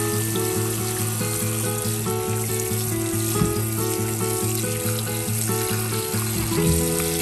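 Tap water running in a steady stream onto sweet potatoes in a bowl, splashing as hands rub the skins clean. Light background music with a short, evenly paced repeating run of notes plays over it.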